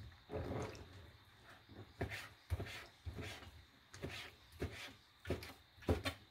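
Kitchen knife slicing through konnyaku and knocking on a plastic cutting board: about eight separate knocks, coming closer together near the end.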